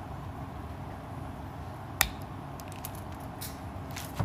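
Sharp clicks of small wires being snipped: Ethernet cable conductors trimmed to length with a stand-in for a broken wire cutter. The loudest snip comes about two seconds in, with a few fainter clicks after it and another snip near the end.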